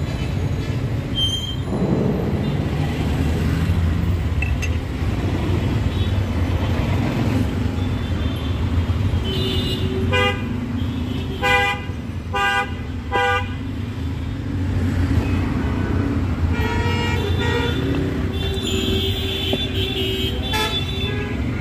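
Street traffic: a steady low rumble of passing vehicles, with a vehicle horn honking in four short blasts about ten to thirteen seconds in and more horns near the end.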